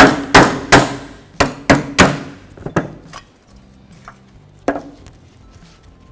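Steel-headed hammer striking old rear brake pads to drive them out of a rusty cast caliper bracket: about seven sharp metallic blows with a short ring in the first three seconds, then a single knock near five seconds.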